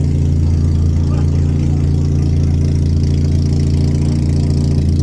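An engine running steadily at idle, a constant low hum with no revving.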